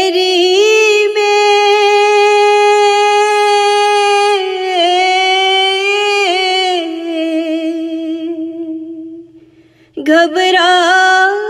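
A woman singing an Urdu naat in a single voice, drawing out long, ornamented held notes. The line fades away about nine seconds in, and after a brief pause she begins the next phrase.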